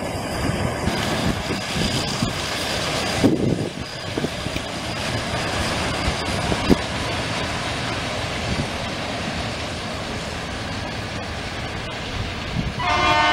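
GE U11B diesel locomotive running as it hauls the freight train away, with wheels rumbling and knocking on the rails. Near the end a locomotive air horn starts to blow a steady chord.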